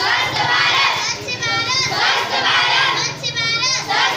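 A group of children shouting a slogan together in several loud, high-pitched phrases with short pauses between them.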